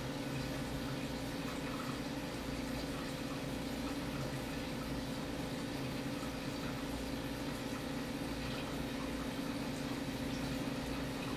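Aquarium filtration running steadily: water trickling and splashing, with a low, even pump hum underneath.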